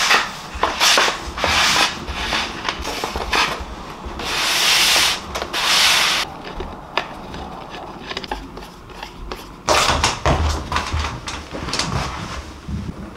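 Paper and a backing board sliding and rubbing against each other and against an aluminium picture frame as the frame is assembled, in uneven hissing strokes, the longest about four to six seconds in. Light clicks and knocks of the frame parts run through it, heaviest about ten seconds in.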